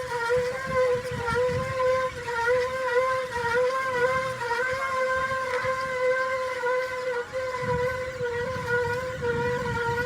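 A steady mechanical drone whose pitch wavers slightly, over irregular low rumbling.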